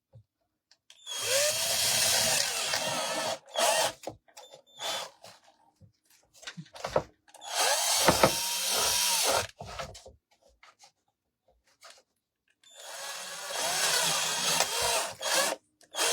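Power drill with a larger bit boring out pilot holes in painted wood, run in three bursts of two to three seconds each. Short knocks come between the bursts.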